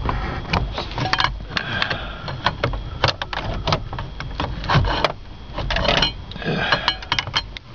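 Irregular clicks, taps and clatter of small parts being handled and pried at on a Ford Explorer's column shifter mechanism, with a scraping stretch near the end.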